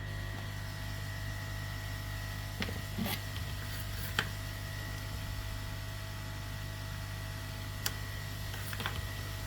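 Steady electrical hum and hiss of running workbench equipment, with a handful of small sharp clicks from tools touching down.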